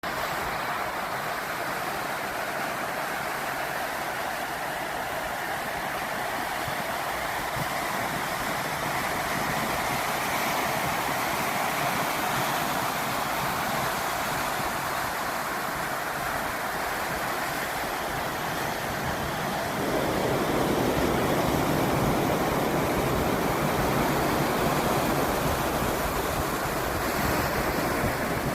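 Pacific Ocean surf washing onto the beach, a steady rush of waves. About twenty seconds in it turns louder and deeper.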